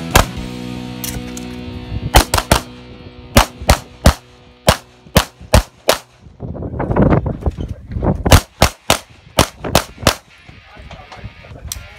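STI Edge .40 pistol firing rapid pairs of shots, about twenty in all, the two shots of each pair a fraction of a second apart. There is a pause of about two seconds midway between strings.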